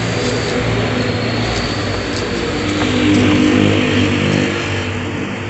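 A motor vehicle engine running, growing louder about three seconds in and then fading.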